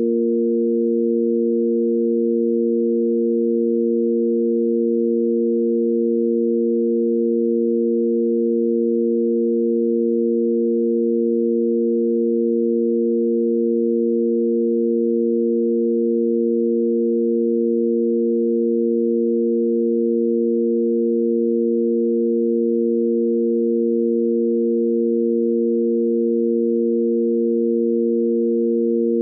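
Sine-wave tanpura drone in A#: three pure sine tones, the root A#, the fifth above it and the octave, held perfectly steady without change.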